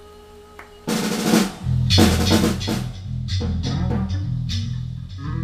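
Ludwig drum kit playing a burst of loud fills, with snare, bass drum and cymbal strikes starting about a second in after a quiet held note, and low bass notes beneath. The hits thin out toward the end.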